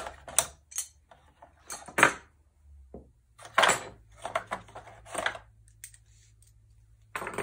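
Hard plastic and metal knitting-machine tools and parts clacking and knocking as they are lifted out of the machine's compartment and set down, in irregular separate knocks, the loudest at the start and about two seconds in.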